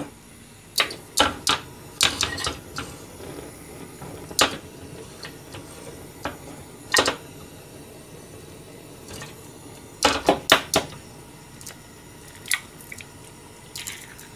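Scattered sharp clacks and knocks of a frying pan being lifted, tilted and set back on a gas hob's grate while oil heats in it, with a quick cluster of knocks about ten seconds in. Near the end an egg is cracked and dropped into the pan.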